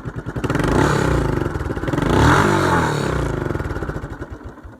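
Two-stroke Lawn Boy mower engine running and revving up and down twice, then dropping away near the end.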